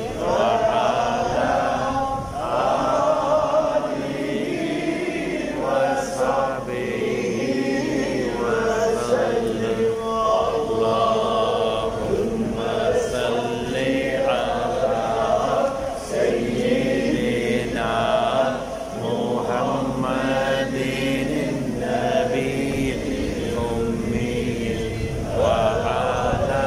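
Islamic religious chanting: melodic vocal phrases drawn out at length, broken by brief pauses every few seconds.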